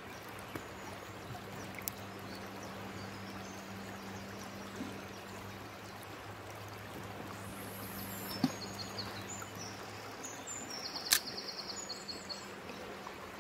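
Shallow river water flowing steadily over the riverbed, with faint small-bird chirps in the second half and two short sharp clicks.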